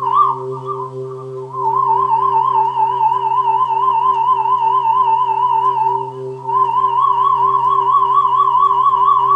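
Korg Pa50SD arranger keyboard sounding a high synth lead with fast, even vibrato over a steady low held chord. One short note at the start, then two long held notes, the last a little higher.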